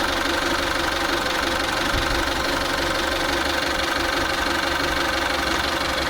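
Kia Pride's B3 four-cylinder engine idling steadily.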